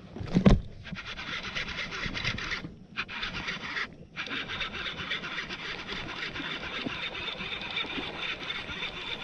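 A hard knock about half a second in, then a steady scratchy rustle with two short breaks around three and four seconds in, typical of a camera being handled and rubbed against.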